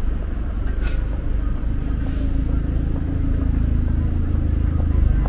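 Busy city street noise: a steady low rumble of road traffic.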